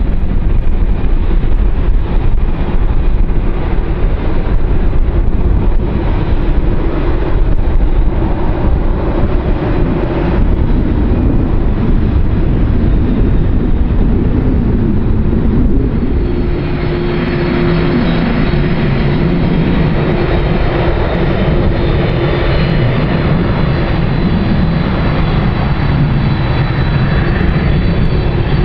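Jet airliner engines running loud: a deep, crackling rumble for the first part. About sixteen seconds in, it gives way to a steadier drone with high steady whining tones over it.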